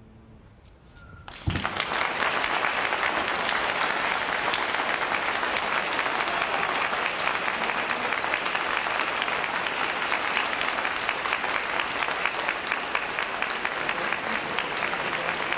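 Audience applauding, breaking out suddenly after a second and a half of hush and then holding steady.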